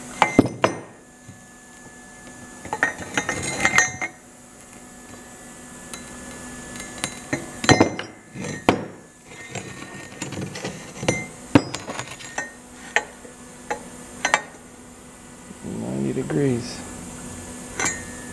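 Steel tubing knocking and clinking against a steel frame and workbench as a freshly bent tube is handled: a scattering of separate metallic clanks, with a short vocal sound near the end.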